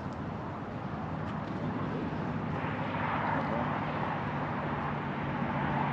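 A distant engine droning steadily, swelling slightly about halfway through.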